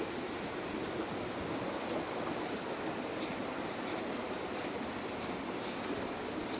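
Steady rushing of a rain-swollen creek in flood, with rain falling.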